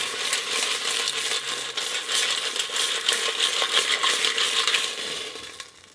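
Clams cooking in oil in an open stainless steel pot: a busy sizzle full of fine crackles and clicks of the shells against the metal, dying away near the end.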